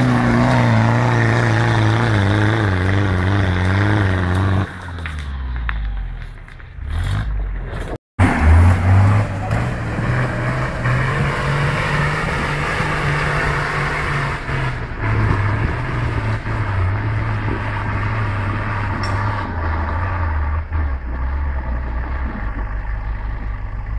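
Toyota Hilux 4x4 engine labouring under load up a steep rocky slope, its revs falling away about five seconds in. After a short dropout near eight seconds, a second off-road 4x4's engine revs hard and runs steadily up the hill, growing fainter near the end as it pulls away.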